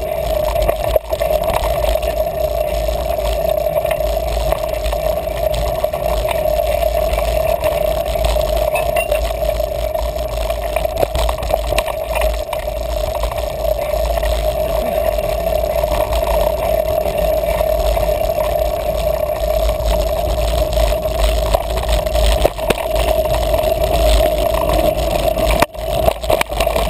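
Mountain bike riding over dirt singletrack, heard through a handlebar-mounted action camera: a steady rushing noise with a constant mid-pitched hum, broken by many small rattles and clicks as the bike goes over bumps.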